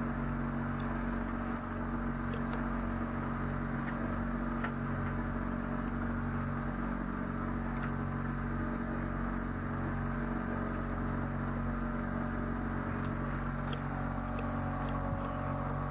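Steady rushing wind and water noise aboard a sailing catamaran under way, with a low steady hum underneath.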